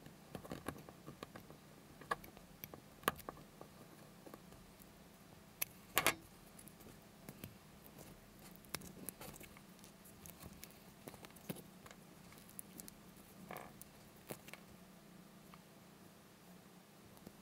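Faint scratches and light clicks of a wine cork being cut with a craft knife and turned in the fingers, with a sharper cluster of clicks about six seconds in.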